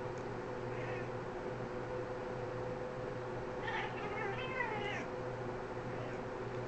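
A cat meowing during play: a faint short mew about a second in, then a longer wavering meow lasting over a second, near the middle.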